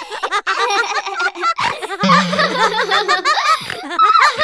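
Dubbed cartoon-style voices laughing and snickering, over background music.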